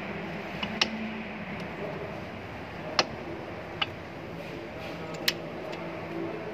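A few sharp, irregularly spaced clicks of metal brake pads knocking against a Tokico brake caliper as they are handled and fitted by hand, over a steady background hum.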